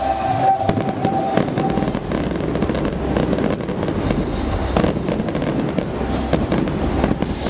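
Fireworks going off in quick succession: a rapid, irregular string of pops and crackling bangs over a continuous din.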